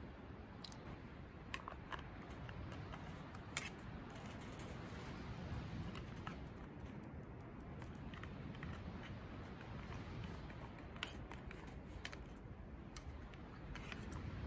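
Light clicks and taps of an aluminium pot and chopsticks on a charcoal grill's wire grate, one sharper tap about three and a half seconds in, over a faint steady low background noise.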